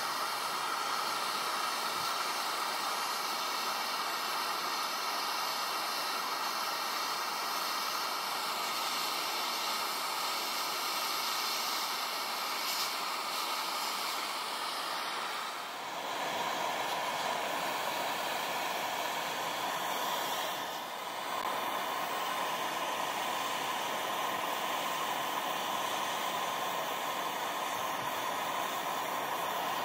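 Jeweller's gas torch hissing steadily as its blue flame melts scrap gold in a clay crucible. The hiss changes tone slightly about halfway through and dips briefly twice.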